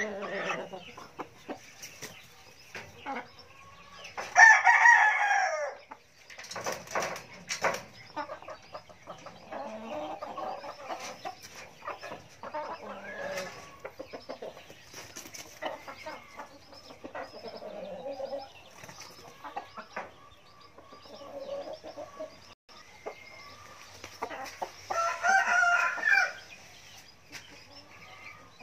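Chickens in a pen: a rooster crows twice, once about four seconds in and again near the end, with quieter clucking between the crows.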